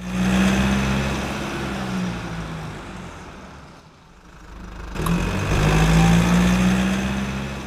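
Car engine revving, in two swells: the first starts loud and fades over about three seconds, and a second comes up about five seconds in after a sharp click, then fades near the end.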